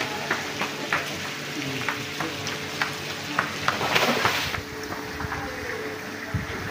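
Crackling and rustling of a plastic-lined landing net, with a run of small sharp clicks, as a large caught fish lying on it is held down and unhooked with pliers; a denser burst of rustling comes about four seconds in.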